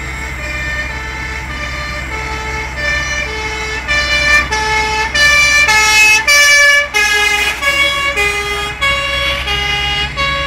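Swiss fire brigade vehicle's two-tone siren, alternating steadily between two notes. It grows much louder about four seconds in, is loudest around the middle, then drops slightly in pitch and fades a little as the vehicle passes and pulls away.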